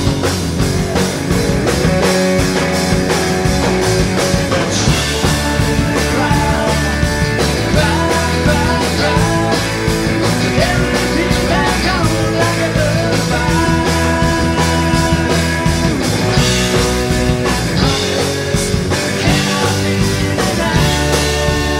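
Rock band playing live: electric guitar, acoustic guitar, bass and drum kit, at a steady loud level with a regular beat.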